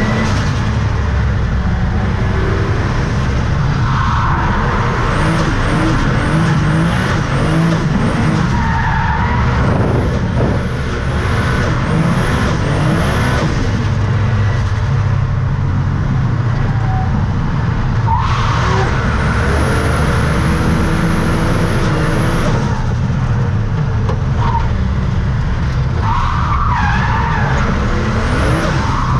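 Race car's engine running hard, heard from inside the car on track, with tyres squealing in short stretches several times as it slides.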